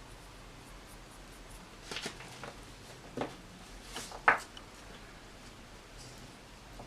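Small metal motor parts being handled on a workbench: a few light clicks and taps, the loudest about four seconds in, over quiet room tone.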